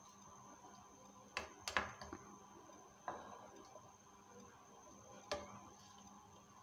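A plastic spoon and dry spaghetti strands tapping against a steel cooking pot as the spaghetti is pushed down into boiling water: a handful of light clicks, several close together about a second and a half in, then single ones near three and five seconds.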